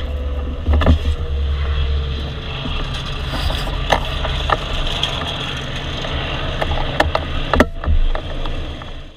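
An aircraft engine running at low power: a steady low rumble with a faint whine that slowly falls in pitch and a few sharp clicks, fading out at the end.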